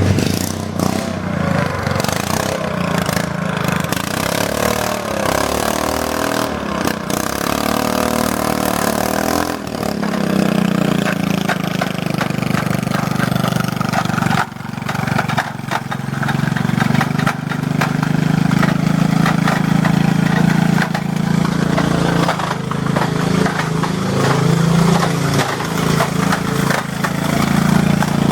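Riding lawn mower's small engine being run hard, its pitch rising and falling for the first ten seconds, then running steadily at high load, with a brief drop in level about midway.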